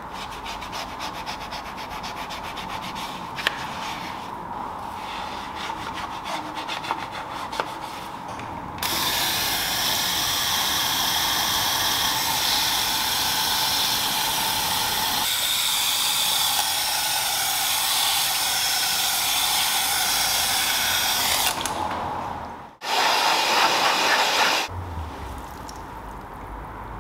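A small detailing brush scrubbing around the lug nuts of an alloy wheel, quick rubbing strokes, for about the first nine seconds. Then a pressure-washer gun rinses the wheel with a loud steady hiss of spray until about 21 seconds, followed by a second short burst of spray, and a low hum near the end.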